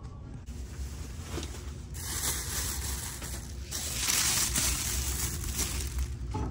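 Plastic shopping bag rustling and crinkling right against the microphone, growing loud about two seconds in, over a low rumble of the phone being handled.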